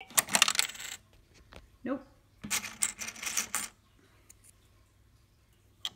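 Coins dropping into a toy cash register's coin slot and clattering down inside it, twice: once in the first second and again about two and a half seconds in.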